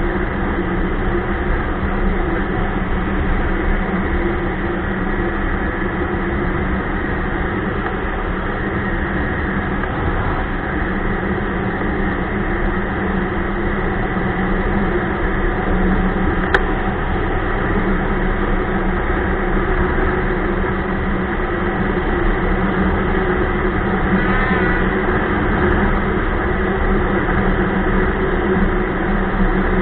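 Ski-Doo Expedition snowmobile running steadily while riding, its engine and track noise continuous.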